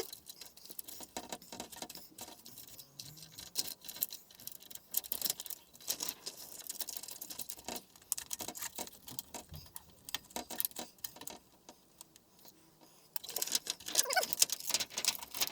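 Scattered light clicks and taps of thin plastic sheets being handled, as the TV's diffuser sheet is laid back over the backlight LED strips. A busier run of clicks comes near the end.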